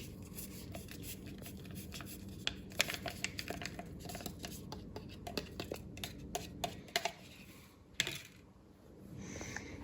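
Scattered light clicks and taps, thickest in the middle and sharpest about eight seconds in, over a low steady hum.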